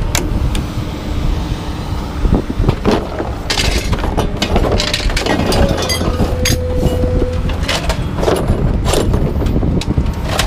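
Scrap being unloaded from a pickup bed: repeated metal clanks and crashes over a steady engine rumble, with a short steady whine a little past halfway.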